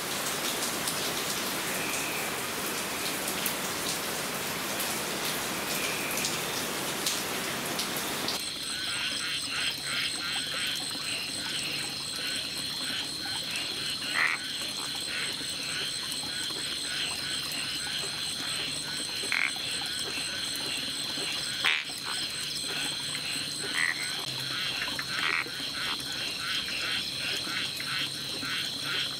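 Steady rain falling, cut off abruptly about eight seconds in by a chorus of rainforest frogs calling in short, repeated notes over a steady high-pitched drone, with a few louder single calls scattered through it.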